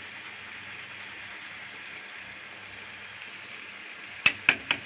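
Onion and grated tomato sizzling steadily in a frying pan over a gas flame. Near the end, a metal utensil knocks three times in quick succession against the pan.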